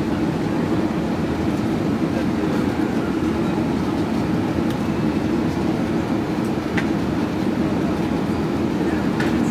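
Airbus A380 passenger cabin noise in flight: a steady low drone of engines and airflow that holds at one level.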